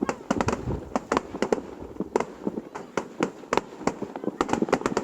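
Fireworks going off: a rapid, irregular string of sharp bangs and pops, several a second, with crackling between them.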